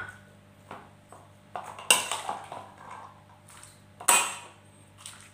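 Metal spoon clinking against a ceramic bowl while buni berries are spooned into a stone mortar. There are two sharp, ringing clinks, about two seconds in and again about four seconds in, with light clatter between.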